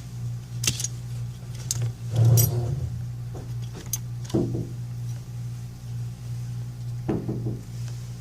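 Small sharp clicks and light metallic taps of repair tools and tiny phone parts during iPhone 5C disassembly, a handful spread over several seconds, over a steady low electrical hum.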